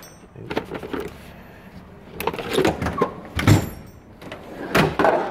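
Steel tool chest drawers sliding on their runners and being shut and opened, with several clunks and the rattle of tools inside; the loudest clunk comes about three and a half seconds in.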